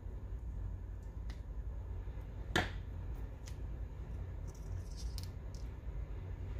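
Paper stationery being handled on a desk: one sharp click about halfway through, then a scattering of faint ticks, over a low steady hum.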